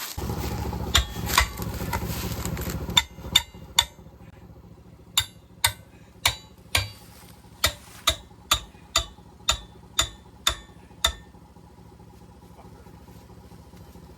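A machine runs loudly and steadily for about three seconds and then stops. It is followed by about fifteen sharp hammer blows, roughly two a second, on farm equipment during a blown-tire repair.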